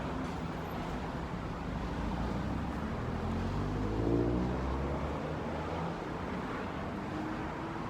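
Car engine and road noise: a low, steady rumble.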